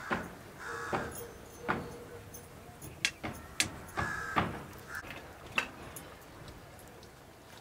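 Steel ladle clinking and scraping against a metal wok of boiling buffalo intestines as they are stirred: a run of sharp, irregular metallic knocks.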